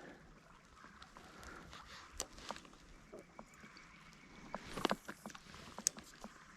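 Faint water sloshing and swishing from wading in a gravel-bottomed trout stream, with scattered small clicks and knocks and a louder swish about five seconds in.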